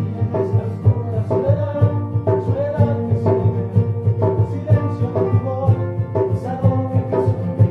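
Instrumental music with a steady beat: sustained melody and chord notes changing about every half second over a regular pulsing bass.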